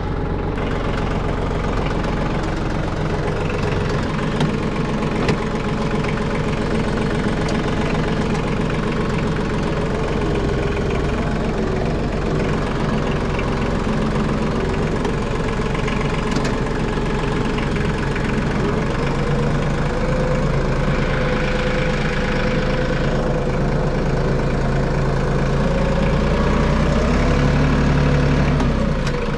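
Branson compact tractor's diesel engine running steadily as the tractor drives, its note rising and dipping in the second half and loudest shortly before the end.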